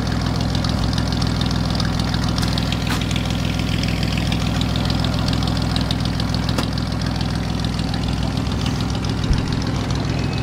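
Car engine idling steadily, a low, even hum.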